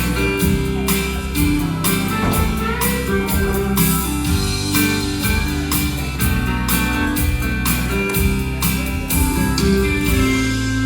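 Instrumental introduction to a gospel song: band accompaniment led by guitar, with sustained notes over a steady beat and no voices yet.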